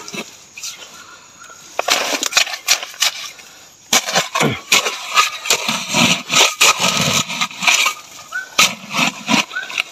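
Soil, gravel and clay being dug out and scraped with a plastic gold pan, a run of irregular scrapes and crunches, busiest in the second half.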